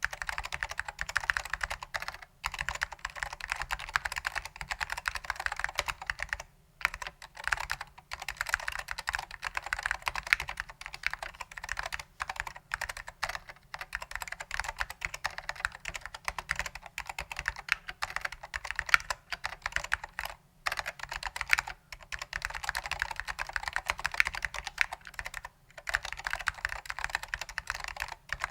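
Fast, continuous typing on an Apple Standard Keyboard M0116J with vintage Alps SKCM Orange switches, lubed with dry lube, and Japanese keycaps: a dense stream of key clicks and clacks. The typing breaks off for a moment about six times.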